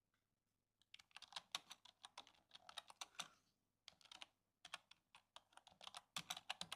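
Typing on a computer keyboard: quick runs of keystrokes starting about a second in, broken by short pauses, as a search query is entered.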